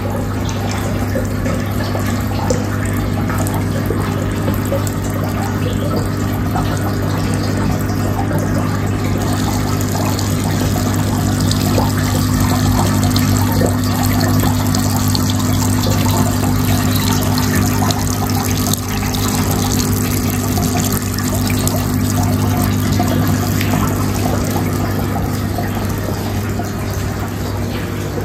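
Indoor Buddha statue water fountain running: water pouring and splashing steadily into its basin, with a steady low hum under it.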